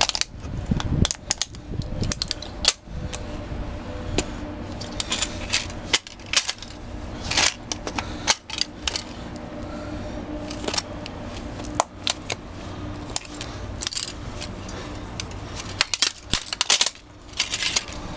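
Plastic CD case cracking and snapping under Red Wing CSA work boots as they stomp and grind it against asphalt: a run of sharp irregular cracks and crunches, thickest about a third of the way in and again near the end.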